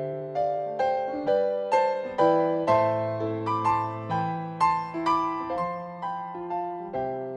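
Solo piano playing a slow, gentle melody over held bass notes, about two or three notes struck a second.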